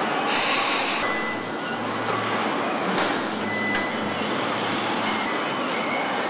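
Industrial machinery noise from a car body-shop line: a steady din with a short burst of hissing air about half a second in and a few brief high tones.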